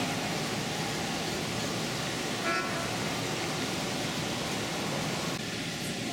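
Steady background noise of a model train exhibit hall, with one short horn toot about two and a half seconds in.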